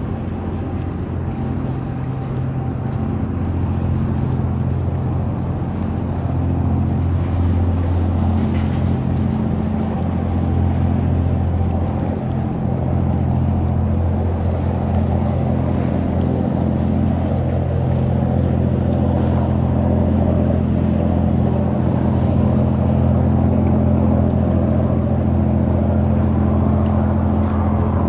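Ship diesel engines droning steadily at a low pitch, growing a little louder over the first several seconds and then holding level.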